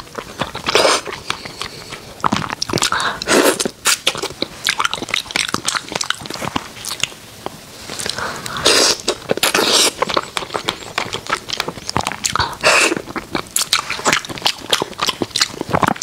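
Close-miked biting and chewing of fish, with crisp crunches. Several loud bursts of crunching stand out over steadier, quieter chewing and mouth clicks.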